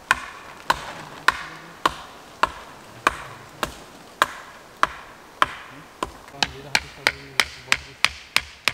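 Steady hammering: sharp, ringing blows about one every 0.6 s, quickening to about three a second over the last couple of seconds.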